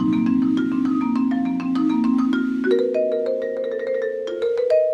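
A tuned mallet percussion instrument playing quick runs of short high notes over lower notes that ring on and build into a held chord.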